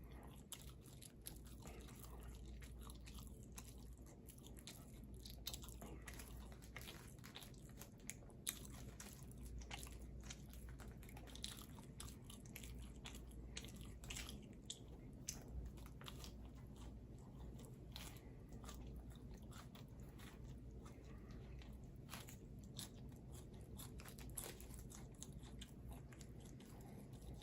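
Faint chewing: many soft, irregular crunchy clicks, a few of them louder, over a low steady background hum.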